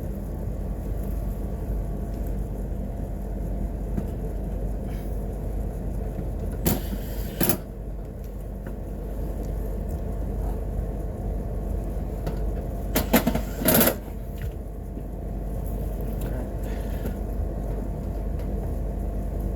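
Steady low machine hum, broken twice by brief clusters of knocks and clatter, one about seven seconds in and one about thirteen seconds in.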